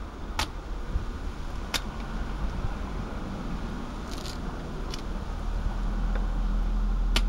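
A steady low rumble that grows louder toward the end, with a few sharp clicks and a brief crinkle about four seconds in as small items are handled on the work mat.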